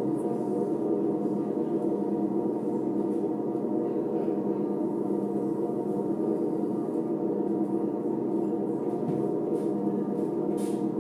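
Live drone music: a dense, steady wall of many sustained overlapping tones that barely changes, with a few faint high ticks near the end.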